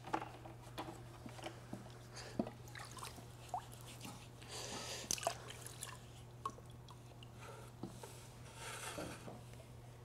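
Faint handling sounds of a potter working wet clay by hand: fingers rubbing and smoothing the clay, with scattered light taps and small wet sounds, over a low steady hum.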